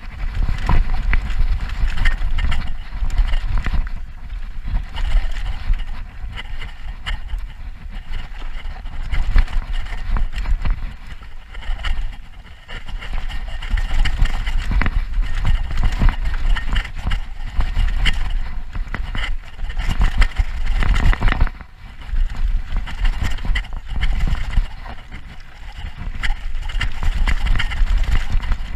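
Mountain bike ridden fast down a dirt trail, heard from a bike-mounted action camera. Wind buffets the microphone in a constant rumble, over tyre noise and a dense run of knocks and rattles from the bike and its suspension hitting roots and bumps.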